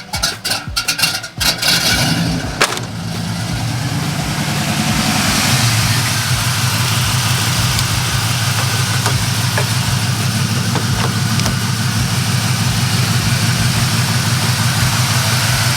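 LS-swapped Chevy C-10's V8 engine cranking on a jump start, catching about three seconds in and settling into a steady idle.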